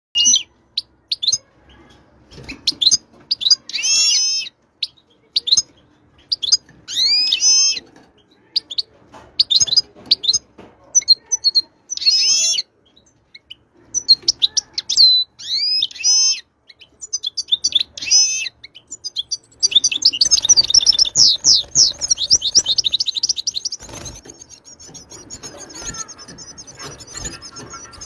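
European goldfinch singing: phrases of liquid, twittering notes broken by short pauses. About two-thirds of the way through, it turns into a fast, unbroken run of notes, then settles into quieter continuous twittering.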